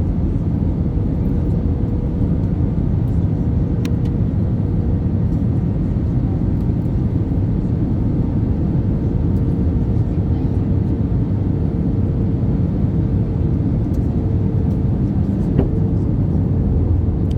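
Steady engine and airflow noise inside an Airbus A320 on final approach, a constant low rush with a faint steady hum above it. A couple of faint ticks come through, one a few seconds in and one near the end.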